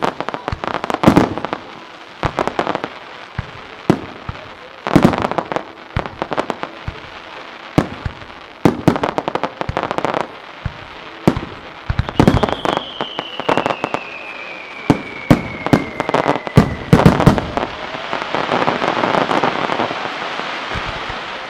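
Starmine fireworks barrage: rapid shell launches and aerial bursts, one after another. Halfway through, a whistle falls steadily in pitch over about five seconds, and near the end a dense crackle of glittering stars takes over.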